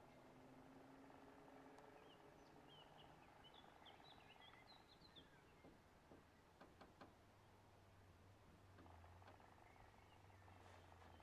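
Near silence: faint outdoor ambience with distant bird chirps in the first few seconds, a few faint clicks around the middle, and a faint low hum in the second half.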